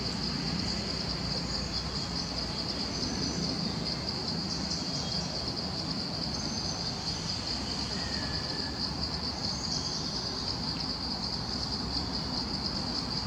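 Steady high-pitched drone of an insect chorus, with a few faint short chirps over it.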